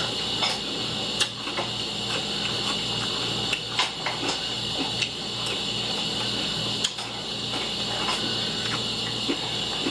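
Steady hiss and a low fluttering hum, with scattered sharp clicks and taps of a spoon against a cereal bowl during eating.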